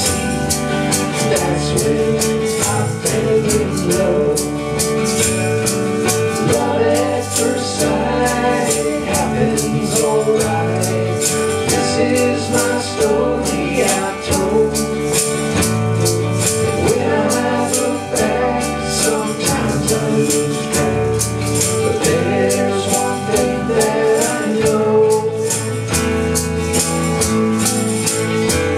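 A small live band playing a country love song: strummed acoustic guitar, electric bass and drum kit, with a shaker keeping a fast, even rhythm, and a man singing lead.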